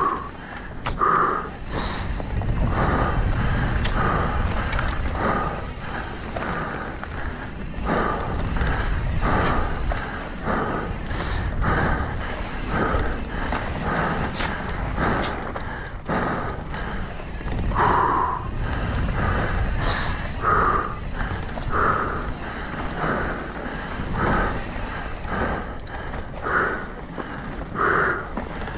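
Mountain bike ridden over a rough trail: steady wind rumble on the camera microphone, rattling and knocking from the tyres and bike over the ground, and short puffs of the rider's hard breathing repeating every second or so.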